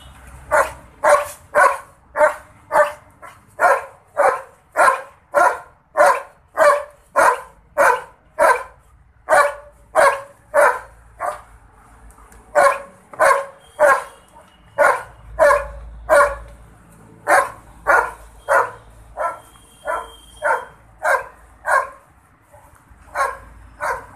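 A large dog barking over and over at about two barks a second, with a brief pause about halfway through.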